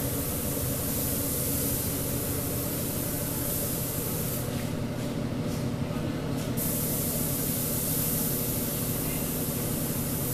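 Compressed-air paint spray gun hissing as paint is sprayed onto a car's body panels, over a steady low machine hum. Near the middle the spraying stops for about two seconds, broken by a few short puffs of the trigger.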